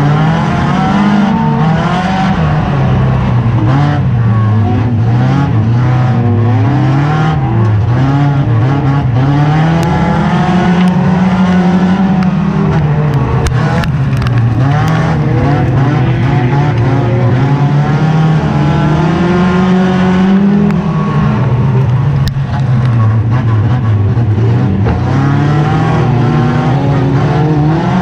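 Race car's engine heard from inside the stripped-out cabin, running hard throughout, its note rising and falling every few seconds as the driver accelerates and lifts off around the oval.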